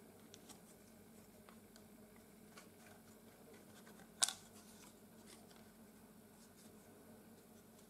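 Faint handling of PVC engine parts: light plastic clicks and taps, with one sharp click about four seconds in.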